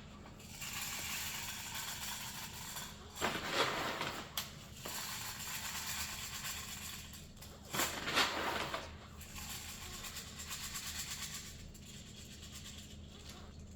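Airsoft M4 magazine being handled after loading with BBs: faint clicking and rattling, with two louder bursts of handling noise about three and a half and eight seconds in.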